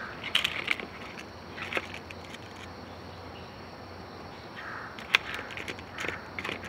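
Faint steady chirring of insects, with scattered light clicks and rustles of dry leaves. The sharpest click comes about five seconds in.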